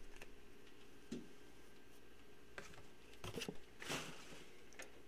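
Faint handling of trading cards and cardboard packaging on a table: a few light scattered clicks and a short rustle near the end.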